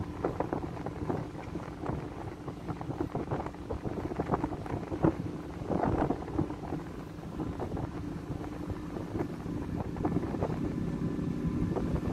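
Strong wind buffeting the microphone in gusts over the steady low hum of a ship's engine.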